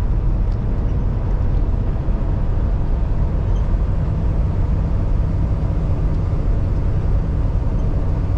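Steady drone of a semi truck's Paccar MX-13 straight-six diesel under way, with road and tyre noise, heard from inside the cab. No change in pitch or level.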